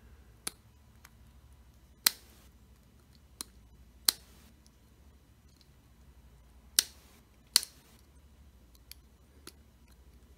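Small sharp clicks of a smartphone's antenna cable connectors being unsnapped from the motherboard and fingers handling the phone's frame: about eight clicks, spaced irregularly, a few of them louder with a brief hiss after.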